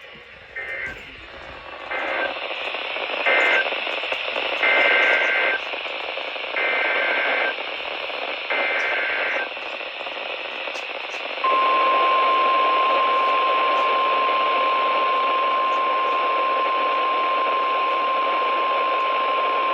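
Weather radio emergency alert signalling over static hiss. First three short screeching two-tone SAME data bursts, the end-of-message code, then three longer SAME header bursts about a second apart. Then the single steady warning alarm tone, held about nine seconds, that precedes a new warning broadcast.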